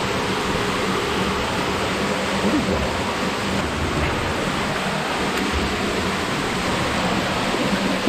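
Underground waterfall rushing steadily, running high with snowmelt.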